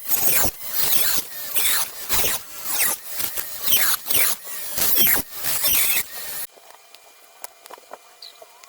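Small drill cutting into a heat-damaged, crumbling section of a circuit board, in repeated bursts of about a second each with a squeal that falls in pitch. It stops about six and a half seconds in, leaving only faint light ticks.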